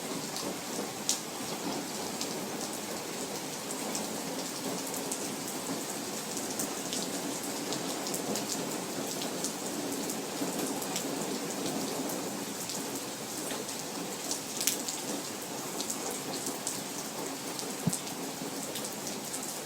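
Steady rain falling, with many individual drops ticking sharply close by and a few louder drop hits.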